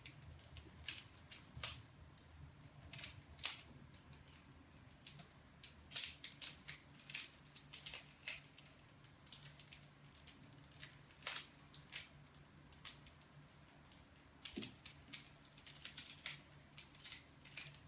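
Plastic layers of a Rubik's mirror cube being turned, giving quiet, irregular clicks and clacks at an uneven pace, over a faint steady hum.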